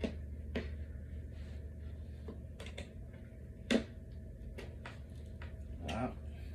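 Scattered clicks and knocks of flat-pack furniture parts and small hardware being handled and fitted together, with one sharper knock about halfway through and a short rattle near the end, over a low steady hum.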